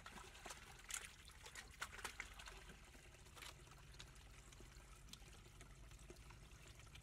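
Faint trickle of muddy water running into a dug hole, with small splashes and sloshes from hands and a plastic basket moving in the shallow water, most of them in the first half.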